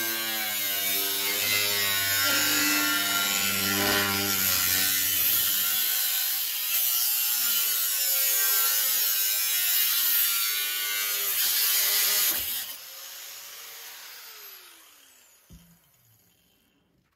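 Handheld power tool cutting the faceplate stock, its motor pitch wavering as the load changes. About twelve seconds in it is switched off and the motor winds down with a falling whine, followed by a couple of faint clicks.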